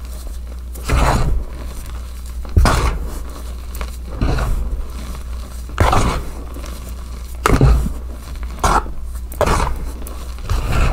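Soft gym chalk crunching and crumbling as hands squeeze and crush clumps of it, in short crunches about every second and a half.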